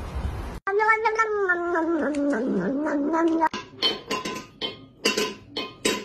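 A cat gives one long, drawn-out meow that wavers and falls in pitch. It is followed by several sharp clinks from a small metal food bowl, each with a short ring, as the cat paws at it.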